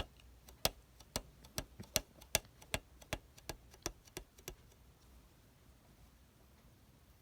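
A rapid series of sharp clicks, about four a second, stopping about four and a half seconds in.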